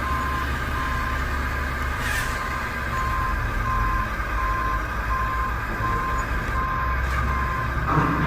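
Reversing alarm of a radio-controlled construction vehicle beeping at an even pace, one beep at the start and then a steady run of short beeps from about three seconds in, over a steady low engine rumble.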